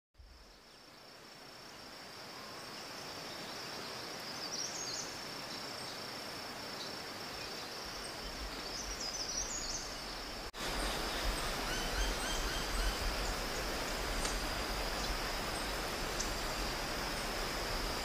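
Forest ambience fading in, dominated by a steady high insect drone. A few short bird chirps come about five and nine seconds in, and a low rumble sets in during the second half. The sound breaks off for an instant about ten seconds in.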